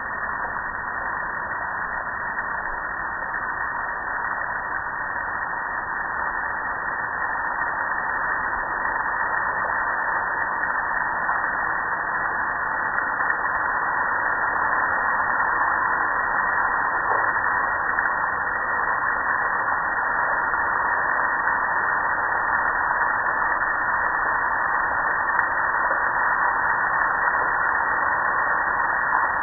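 Steady hiss of water spray pelting a gas grill's lid and metal panels, growing a little louder over the first dozen seconds.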